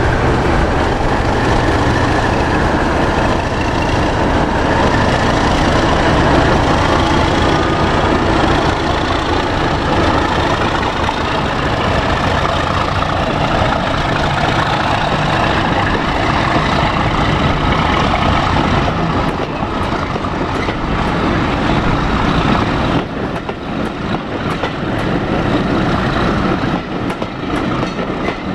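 Class 37 diesel locomotive with its English Electric V12 engine running as it draws its train of coaches past, the engine sound loud at first. About two-thirds of the way through the engine fades, leaving the lighter rumble of the coaches rolling by on the rails.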